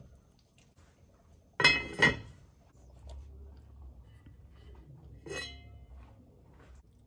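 Enameled cast-iron Dutch oven lid clinking against the pot's rim: two ringing clinks in quick succession about a second and a half in as it is set on, then one lighter clink a few seconds later as it is lifted off.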